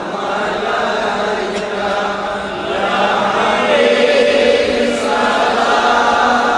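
Several voices chanting a devotional milad na'at together in long, drawn-out melodic lines, getting a little louder about halfway through.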